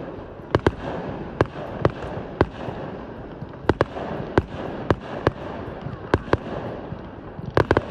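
Fireworks display: a rapid, irregular series of sharp bangs from bursting shells, about sixteen in eight seconds, over a steady background of crackle and rumble. Three bangs come in quick succession near the end.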